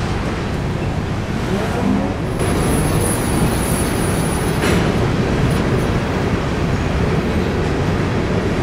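Empty grain train rolling past with a steady rumble of steel wheels on the rails. A thin, high squeal starts about two and a half seconds in and lasts a couple of seconds.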